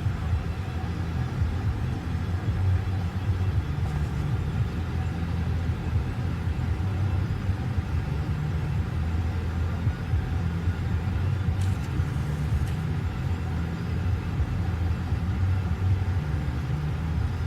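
Low, steady rumble of an idling car engine, with no change in speed.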